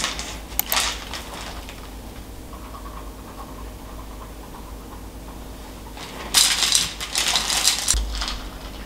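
Dry chocolate cereal rings poured from a plastic jar into a bowl: a dense rattle of pieces about six seconds in, lasting a second and a half, then milk starting to pour. A few light clicks in the first second or so.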